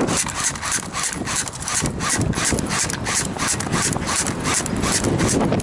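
Steady rhythmic rubbing and scuffing, about three strokes a second, like clothing or gear brushing against a body-worn microphone.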